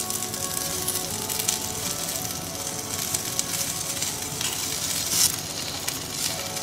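Chicken tikkis sizzling in hot oil on a ridged grill pan as fresh patties are laid down one after another, a steady crackling hiss. Soft background music plays underneath.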